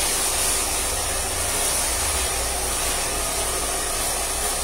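Two handheld hair dryers blowing steadily, the nearer one being worked through short hair with a brush.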